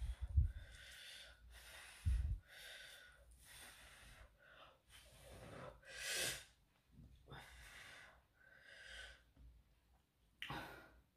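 A person breathing and eating close to the microphone: a string of noisy breaths or puffs roughly once a second, with two low thumps about half a second and two seconds in.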